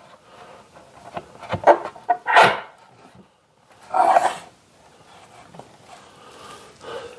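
A dog barking, three short barks spread over a few seconds.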